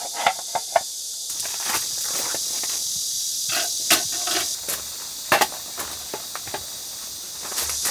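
Short clicks, knocks and rustles of camping gear being handled: a folding board table set up on the ground and a metal mess tin set down on it. Behind them runs a steady high hiss of insects.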